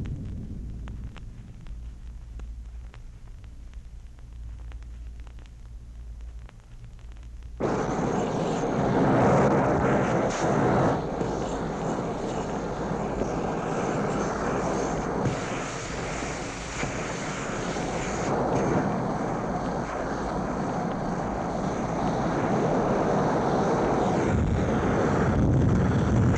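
Space sound effect from an old sound-effects record: a low rumble fades away, then about eight seconds in a loud, jet-like rushing noise starts suddenly and keeps going, with a faint high whine over it.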